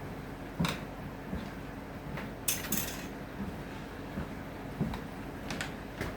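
Hand tools being picked up and set down on a workbench: scattered light clicks and knocks, with a short scrape a little after two seconds in.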